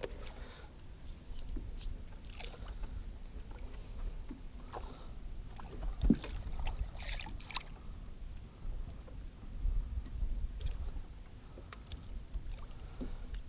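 Water sloshing and lapping against the side of a small fishing boat, with faint scattered ticks and knocks.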